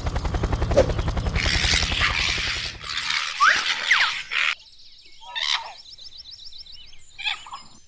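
Cartoon sound effects: a fast, even rattle for about three seconds, then a noisy rush with a few short rising squeaks, then quieter light ticking.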